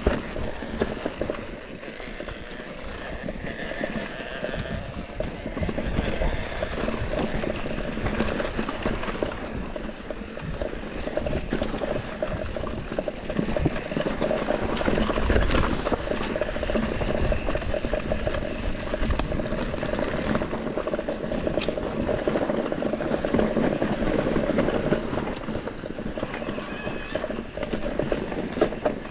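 Mountain bike descending a rough trail: tyres crunching over loose stones and gravel, with a constant clatter of small knocks and rattles from the bike and a few heavier thumps over bumps.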